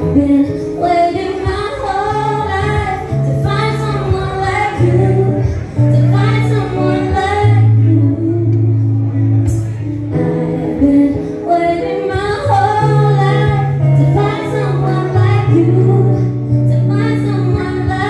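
Live band playing with a woman singing lead into a microphone, the bass guitar holding long low notes under the keyboard and vocals.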